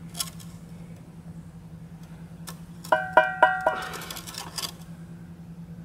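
Four quick taps of a steel brick trowel's handle on a freshly laid brick, the blade ringing with each tap, then a short scrape: bedding the brick down into the mortar to bring it level.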